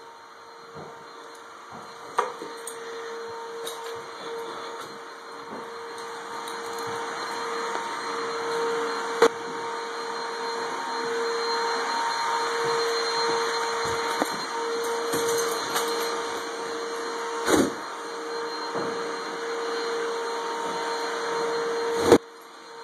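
Vacuum cleaner running: a steady motor whine over a hiss that grows louder over the first half, with a few sharp knocks along the way.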